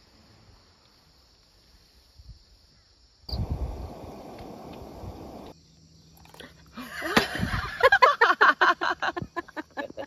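Crickets chirping steadily. About three seconds in, hot water is poured from a small aluminium camping kettle into a drip-coffee bag in an enamel mug: first a rush, then quick gurgling pulses with rising pitch as the mug fills.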